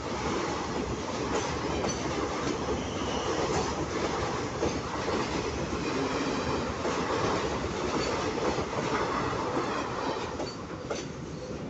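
Container freight train's wagons rolling past close by: a steady rumble of steel wheels on rail, with clicks over the rail joints and a few brief high squeals from the wheels. The sound eases slightly near the end.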